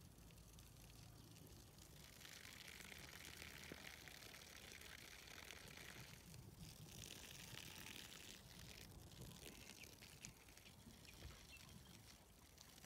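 Near silence: a faint high hiss that comes and goes, with a few soft ticks.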